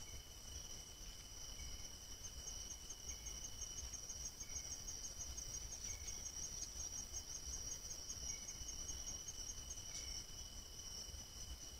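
Night insect chorus of crickets: two steady high-pitched trills, with a fast pulsing trill on top for several seconds in the middle and a soft short chirp every second or two. A low rumble runs underneath.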